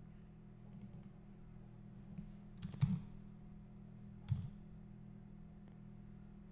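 Three computer keyboard key presses, the middle one the loudest, over a steady low hum.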